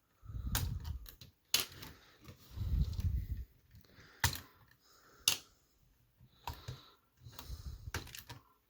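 LEGO plastic pieces being prised off a model's corners with several sharp clicks, amid low rumbling handling noise.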